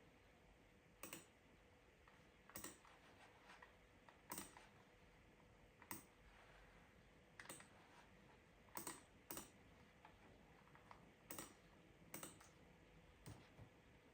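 Quiet, unhurried computer keyboard key presses: about ten single clicks spaced irregularly, a second or more apart, some coming in close pairs.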